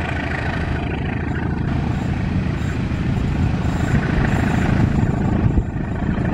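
Diesel-electric locomotive of a passenger train running as it approaches on curved track, a steady low engine rumble growing slowly louder.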